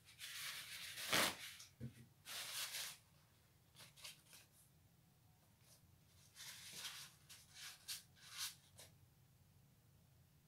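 Paper towel rustling and crinkling in short bursts as it is handled, with a single knock about a second in.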